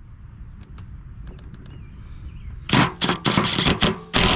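Cordless impact wrench hammering the mower deck spindle nut tight, in several short bursts and then one longer burst near the end.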